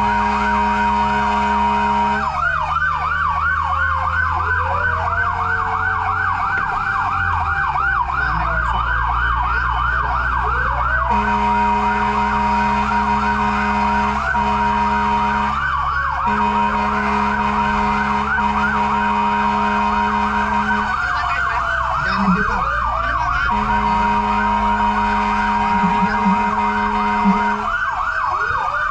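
Fire-truck sirens during an emergency response: a fast yelp of about four to five sweeps a second over slower rising and falling wails, with a steady tone that cuts in and out several times. A vehicle engine runs underneath.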